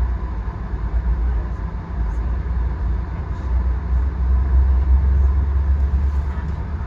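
Via Rail passenger train running along the track: a steady low rumble that grows somewhat louder midway.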